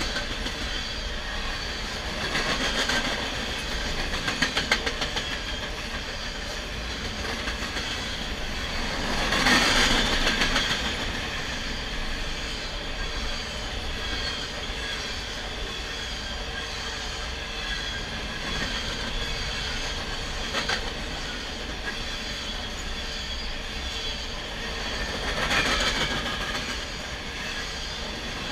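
Freight train of covered hopper cars rolling past close by: a steady rumble of steel wheels on rail with clickety-clack as wheelsets cross joints, a quick run of sharp clicks about four seconds in, and louder swells near the start, around ten seconds in and near the end.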